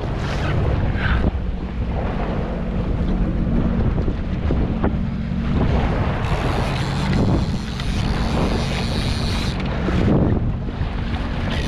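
Sea-Doo GTI jet ski's engine running steadily under way, with wind buffeting the microphone and water rushing and splashing along the hull.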